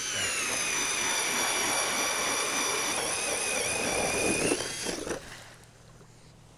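A small motor whining at a high pitch, starting suddenly and running for about four and a half seconds, its pitch sagging slightly under load before it cuts off.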